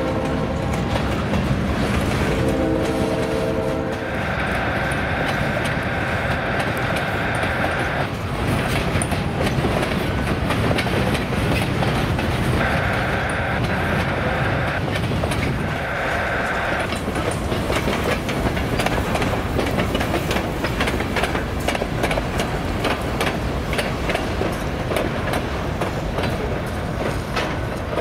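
Freight train cars rolling past, with a steady rumble and the clatter of wheels over rail joints and crossings, thickest in the second half. A train horn chord ends about a second in and sounds again briefly about two to four seconds in. A higher steady tone then comes and goes several times up to about seventeen seconds in.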